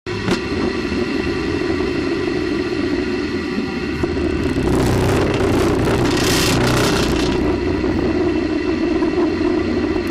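Space Shuttle Endeavour's cabin noise during powered ascent: steady rumble and hum of the vehicle under main-engine thrust, with a louder stretch of hiss from about halfway through.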